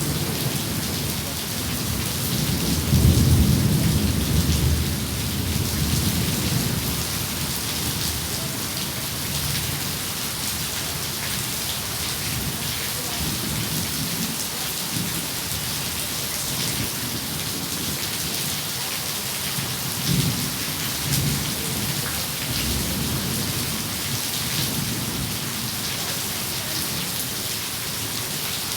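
Steady rain with rolling thunder rumbling underneath, the strongest roll a few seconds in and a weaker one later.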